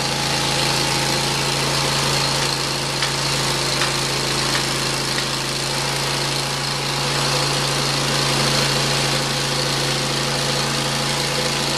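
Engine of a Hud-Son Oscar 36 portable bandsaw mill running steadily at an even speed, not cutting, with a couple of light knocks a few seconds in.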